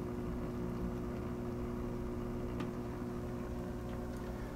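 Aquarium equipment humming steadily, with a faint click a little past halfway.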